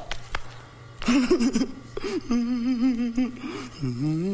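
A person's voice making short vocal sounds, then a drawn-out, wavering moan held for about two seconds.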